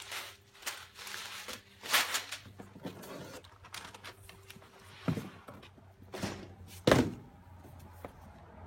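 Items and packaging being handled: rustling with several knocks and thumps, the loudest about seven seconds in.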